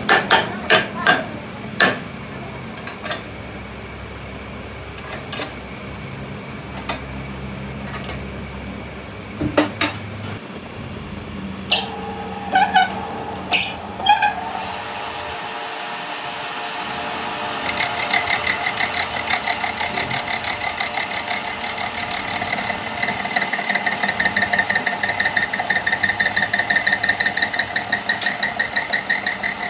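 Workshop sounds: sharp metal knocks and clinks scattered through the first half, a few of them ringing. A little over halfway a machine starts and runs with a fast, even pulsing whine.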